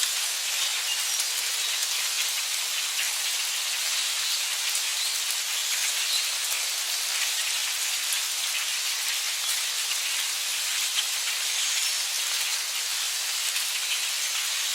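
Heavy rain falling steadily, a dense even hiss of countless drops with fine patters throughout.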